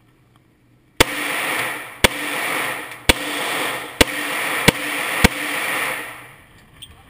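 Handgun fired six times in an indoor range booth, each shot sharp and followed by echoing reverberation. The shots come about a second apart, the last two closer together.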